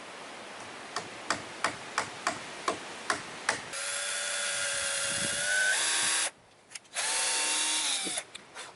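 About eight hammer strikes driving nails into wood blocks, roughly three a second. Then a power drill runs twice, a steady whine whose pitch steps up slightly during the first, longer run before it cuts off.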